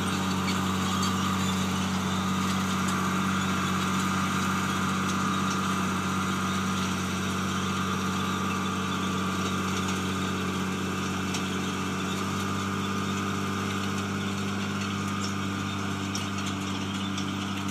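Case IH 8950 tractor's six-cylinder diesel engine running steadily under load while pulling a field cultivator, with a steady whine above the engine note. The sound eases slightly as the tractor moves away.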